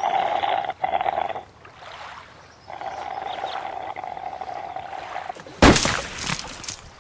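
Cartoon sound effects: slurping through a drinking straw, in two long stretches with a short break between them, then a sudden loud splat about five and a half seconds in.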